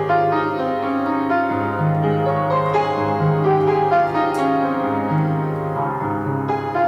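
Piano music: single notes played over low bass notes that change about every second or two.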